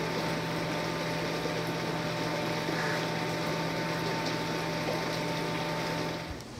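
Aquarium pump running with water circulating: a steady hiss over a low hum, cutting off suddenly near the end.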